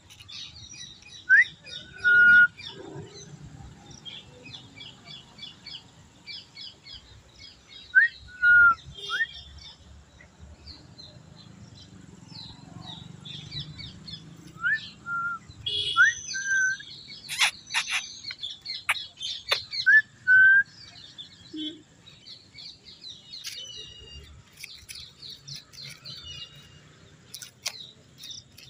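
Many small birds chirping busily, with louder clear whistled notes in pairs, each a quick upward sweep followed by a short held note, every few seconds. A few sharp clicks come around the middle and near the end.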